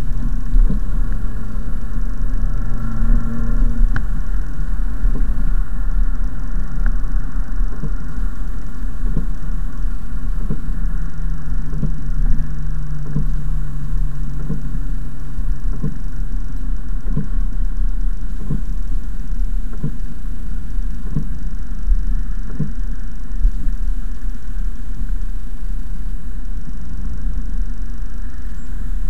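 Mercedes-Benz C-Class coupe heard from inside the cabin while driving on a wet road: a steady low engine and road rumble, with the engine note shifting as it pulls. A light knock repeats about every second and a half for much of the time, as the windscreen wipers sweep.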